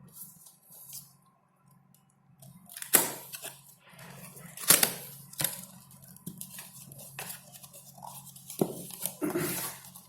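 A small cardboard product box being opened by hand: packaging rustling and tearing, with a few sharp snaps and crackles as the flaps and inner packing come apart.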